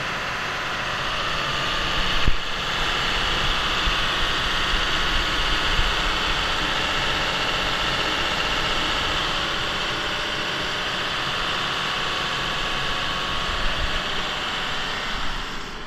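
Cummins 5.9-litre inline six-cylinder diesel idling steadily, heard close to the engine bay, with a single sharp clack about two seconds in.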